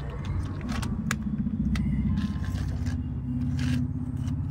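Plastic wheels of a toy water tanker truck rolling over a stone floor as it is pushed by hand: a steady low rumble with a few light clicks.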